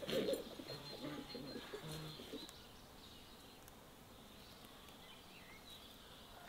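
Rural bird sounds: a dove's low cooing in the first couple of seconds, then a quiet stretch with a few faint bird chirps.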